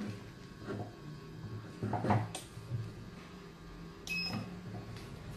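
Low steady hum, with a knock about two seconds in and a short electronic beep about four seconds in from a heat press's digital control panel as a button on it is pressed.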